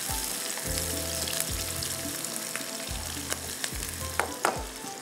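Onions frying in hot oil in a pan, sizzling steadily with crackles, being browned.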